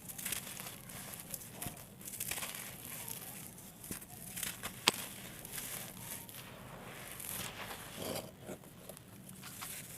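Small dry blocks of red sandy dirt crumbling and crunching, with an irregular crisp crackle and little pops. One sharp snap stands out about five seconds in.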